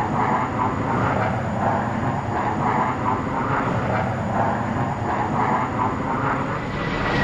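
Fighter jet engines, a steady loud roar of aircraft in flight that swells near the end.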